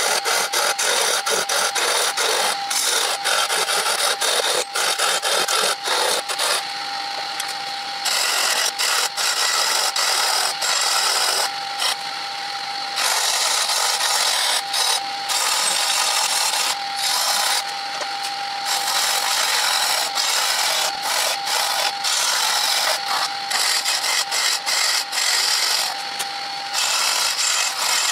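Hand-held turning tool cutting a spinning wooden blank on a lathe: a continuous rough scraping with many small ticks. It stops briefly several times as the tool is lifted away, and the lathe's steady whine shows through in those pauses.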